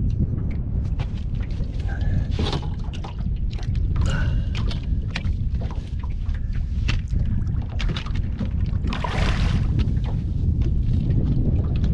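Heavy low rumble of wind buffeting the microphone, with scattered clicks and knocks of tackle and handling in a small boat while a barramundi is fought at the boat, and a short rushing burst of noise about nine seconds in.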